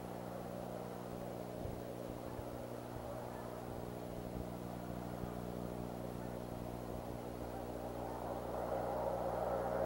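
Steady low hum with a rushing background noise from an outdoor nest-cam microphone, the rushing growing louder near the end; a few faint soft knocks in between.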